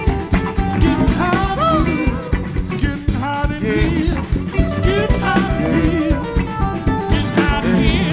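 Live band playing a song with electric guitar and drum kit over a steady beat, a lead line bending up and down in pitch.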